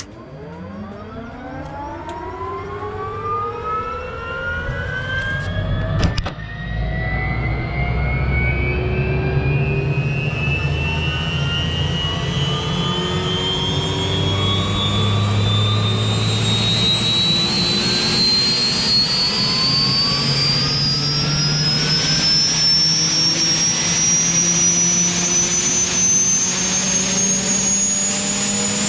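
UH-1H Huey helicopter's Lycoming T53 turboshaft engine starting, heard from inside the cabin: a whine climbing steadily higher in pitch as the turbine spools up. There is a sharp pop about six seconds in, after which it gets louder, and a low rumble builds underneath.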